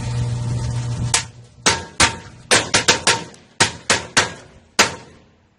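Firecrackers exploding inside a running microwave oven: its low hum stops about a second in as the first bang goes off, then about eleven sharp, separate bangs follow irregularly over the next four seconds.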